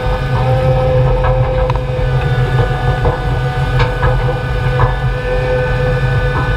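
John Deere 200 excavator's diesel engine running steadily with a constant whine, heard close up from a camera mounted on the machine, with a few short sharp clanks.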